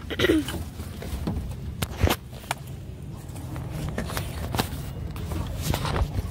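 Clicks and knocks of people climbing out of a parked car through an open door, the loudest knock about two seconds in, over a low rumble of the phone being handled.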